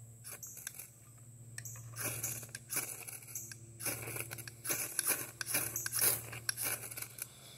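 Knife spine scraped down a ferrocerium rod in a run of short rasping strokes, about one to two a second, starting about two seconds in, throwing sparks onto tinder to light a fire.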